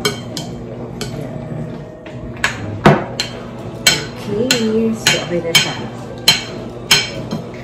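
A serving spoon stirring thick macaroni salad in a glass mixing bowl, knocking and scraping against the glass in about a dozen sharp clicks, irregular and roughly every half second.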